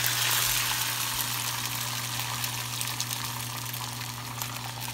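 Beaten eggs sizzling as they hit a hot nonstick frying pan, a steady hiss that eases off slightly as the egg spreads.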